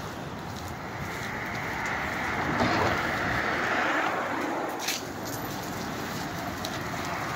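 A car passing on a wet road: its tyre hiss swells over a couple of seconds and fades again over steady traffic noise. There is a sharp click about five seconds in.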